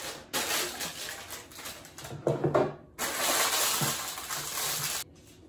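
Parchment paper crinkling and rustling as it is creased to line a metal loaf pan, in two long stretches, with a brief knock about two seconds in.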